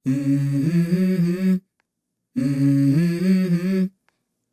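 Song intro: a low voice hums the same short, stepping melodic phrase twice, each about a second and a half long, with a silent pause of under a second between.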